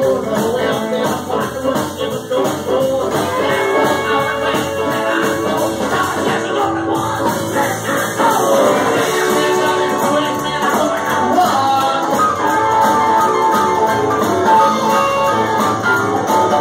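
A live rock band playing an uptempo blues-rock number with electric guitars, bass, drums and keyboard over a steady beat.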